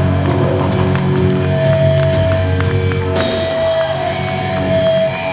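Thrash metal band playing live through a PA: distorted electric guitars holding long notes over drums, with a cymbal crash about three seconds in.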